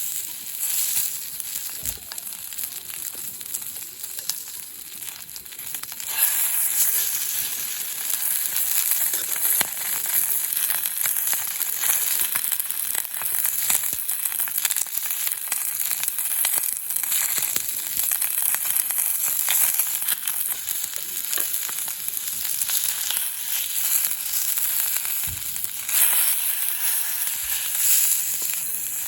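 Food frying in a pan, a steady sizzle with small crackles that grows louder about six seconds in.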